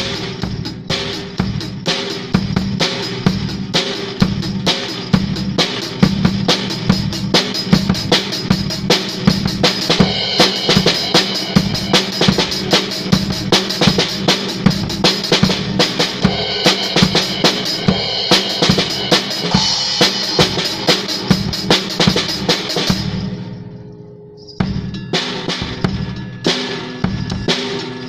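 Improvised drum-kit playing: a dense, steady run of bass drum, snare and cymbal strokes, with ghungroo (nupur) ankle bells on the drummer's feet jingling along. About 23 seconds in, the playing thins out and fades for a moment, then comes back in hard.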